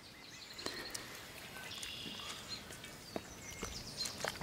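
Faint outdoor ambience with a few soft, short clicks of handling as tomato paste is scooped from a glass jar and rubbed over raw chickens in a metal basin; faint chirps in the background.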